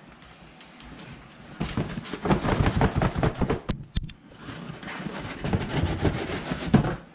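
Cardboard scraping and rustling as a cardboard shipping box is worked up and off a boot box inside it. The noise comes in two spells, with a brief pause just before the middle.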